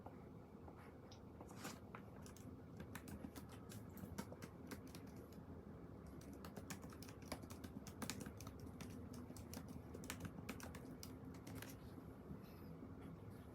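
Faint, irregular clicking of typing on a computer keyboard, in uneven runs that grow busier in the middle and later part.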